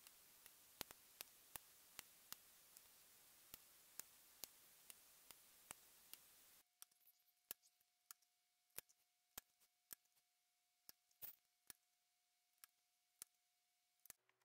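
Mechanical keyboard switches being handled and pressed one at a time into the keyboard's plate, giving quiet, sharp plastic clicks about two or three times a second. A steady hiss under the clicks cuts off about six and a half seconds in.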